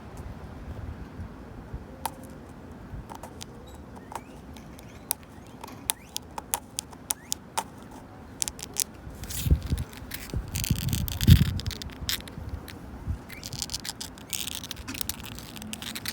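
Long natural fingernails tapping and scratching on a wooden bench: scattered sharp clicks of nail on wood, with longer scratching strokes around the middle and again near the end. Low rumbling thumps come in midway.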